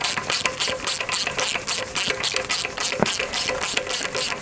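Hand ratchet with a 5/8 socket clicking rapidly and evenly, about eight clicks a second, as it spins down a connecting-rod big-end cap bolt on a tractor engine. One heavier knock about three seconds in.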